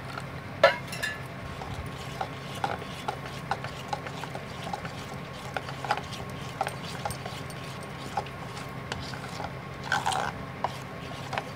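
Metal spoon stirring besan batter in a stainless-steel bowl, the spoon clicking and scraping against the bowl's side at an uneven pace of about one or two knocks a second, with a sharper knock about half a second in. A steady low hum runs underneath.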